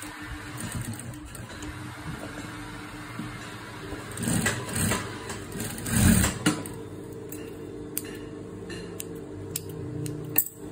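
Industrial sewing machine stitching an invisible zipper onto fabric, its motor humming steadily, with louder surges of stitching about four and six seconds in. Near the end a few light clicks come from thread snips cutting the threads.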